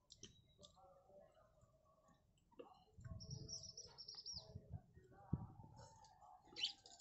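A bird chirping faintly: a high call sliding in pitch about three seconds in, and another near the end, over small eating clicks. A soft knock comes a little after five seconds.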